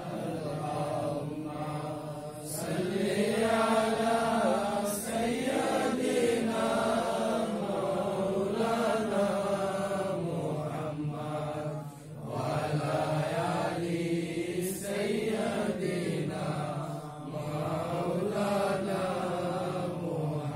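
A group of men chanting a slow, melodic Islamic devotional recitation, one voice on a microphone leading, with short breaks between long drawn-out phrases.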